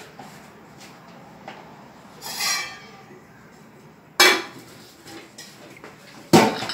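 Metal kitchenware clinking and knocking on a countertop: a ringing clink about two seconds in, then two sharp knocks, the last one near the end the loudest.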